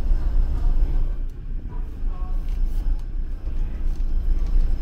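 Low, steady rumble of the ferry Hamayu's engines heard inside the ship, with faint voices in the background.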